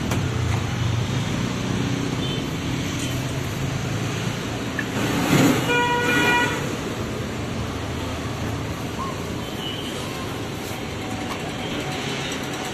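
Street traffic sound with one short vehicle horn toot about six seconds in, a steady single-pitched note lasting under a second.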